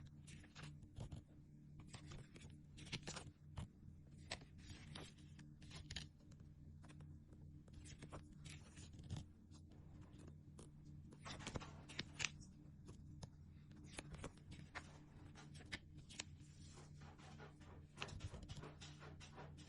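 Faint crinkling, tapping and peeling of small sticker sheets and their plastic packaging being handled, in quick irregular clicks, over a steady low hum.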